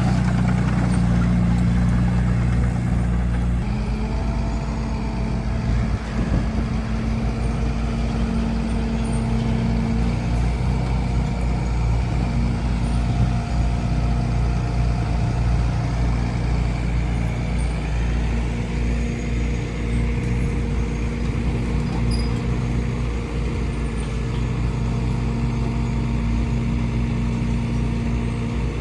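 Bulldozer's diesel engine running steadily under load, with its note shifting a little under four seconds in.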